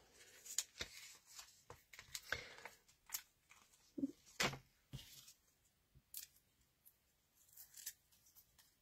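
Faint, irregular clicks and rustles of paper handling: foam adhesive dimensionals being peeled off their backing sheet and pressed onto a card cut-out, with a few sharper clicks a few seconds in.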